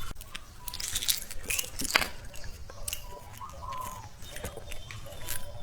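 Close-miked crunching and chewing of a hard candy: irregular sharp crackles and clicks at an uneven pace.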